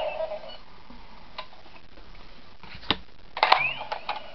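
A few sharp plastic clicks and taps from a Power Rangers action figure and its accessories being handled and set down, the busiest cluster near the end.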